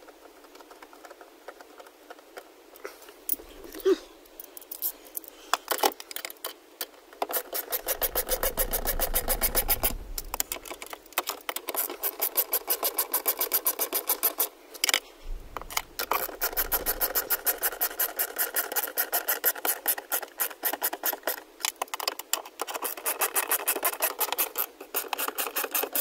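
Hand ratchet on a long socket extension clicking in quick, even runs as it tightens the shifter's mounting bolts. There are a few scattered clicks at first, then long runs with short pauses between them.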